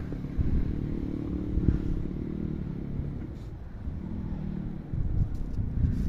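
Strong wind buffeting the microphone as a low, uneven rumble that eases off in the middle and picks up again near the end.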